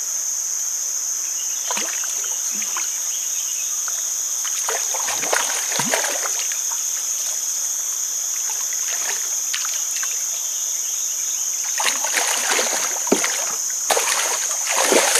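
Water splashing beside the boat as a hooked patin catfish is brought to the landing net: a few splashes about five seconds in, more after twelve seconds, and the loudest near the end. A steady high insect drone runs underneath.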